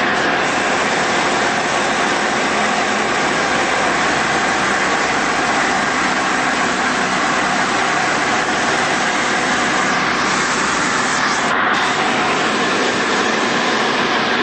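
Tecnam Sierra light aircraft's Rotax four-cylinder engine and propeller running steadily in flight, heard inside the cockpit as a loud, even drone mixed with airflow noise.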